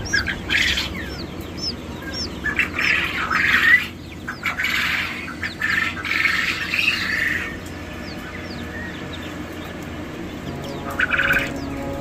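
Poultry calling: many short, high, falling peeps of chicks, with bursts of harsher squawking in the first seven seconds and again near the end.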